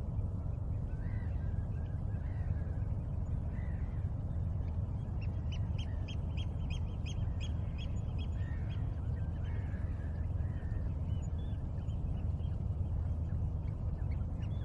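Wild birds calling: scattered short chirps and a quick run of about a dozen evenly spaced notes at roughly four a second, a few seconds in, over a steady low rumble.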